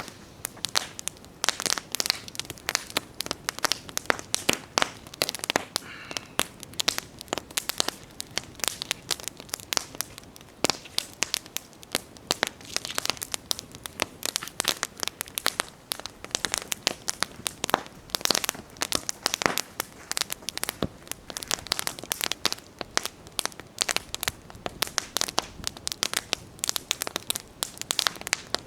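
Wood campfire crackling, with dense irregular pops and snaps over a low steady hiss of burning.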